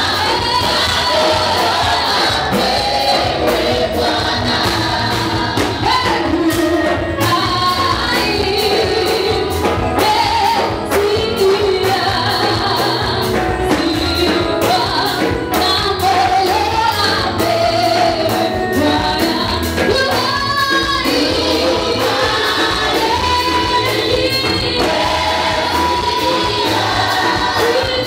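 Live gospel worship music: women singing lead and group vocals into microphones, backed by a live band on electric keyboard, drum kit and electric guitar with a steady beat.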